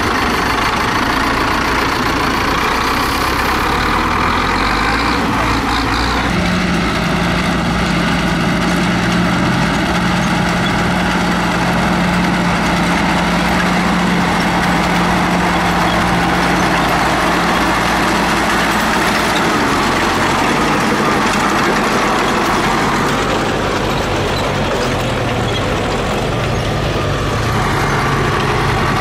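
Diesel tractor engines running steadily, first a Zetor wheeled tractor, then DT-75M crawler tractors; the engine sound changes about six seconds in.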